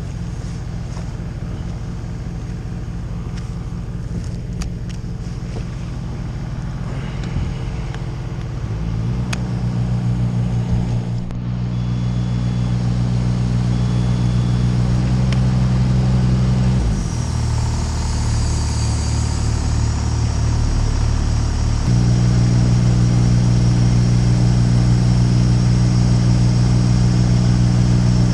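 A machine's engine running steadily. It steps up in speed about nine seconds in, drops back briefly near seventeen seconds, and rises again a few seconds later.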